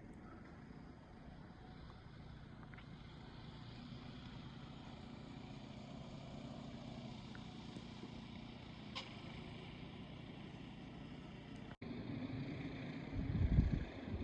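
Faint, steady engine and road noise inside a moving Jeep. About two-thirds of the way through it turns into louder, uneven low rumbling.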